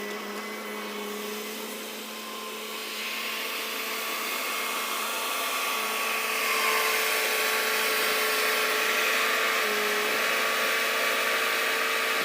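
Bobcat skid steer's engine running steadily with a whine, growing louder a few seconds in and then holding, as the machine loads stumps.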